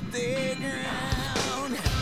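Background music with a sung melody over a steady beat.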